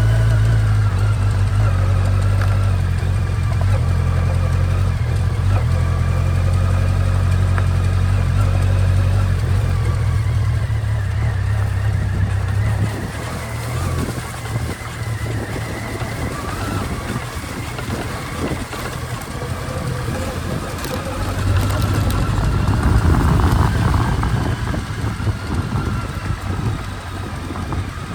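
Motorcycle engine running on a ride, with a steady low engine note that eases off about halfway through and picks up again a few seconds before the end.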